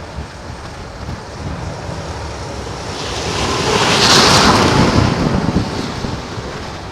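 A snow plow passing on the snowy street, a rushing swell of tyre and snow-spray noise with a low rumble that builds, peaks about four seconds in and fades, over steady wind buffeting the microphone.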